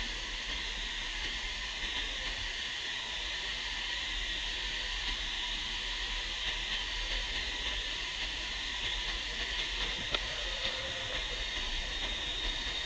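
Steady, high-pitched insect chorus in tropical forest: an unbroken hiss-like drone with no change in level.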